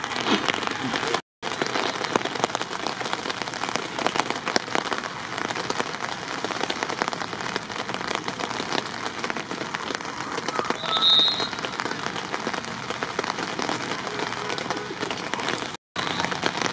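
Steady dense patter of rain falling close to the microphone, with a short high-pitched tone about eleven seconds in. The sound cuts out completely for a moment twice, once near the start and once near the end.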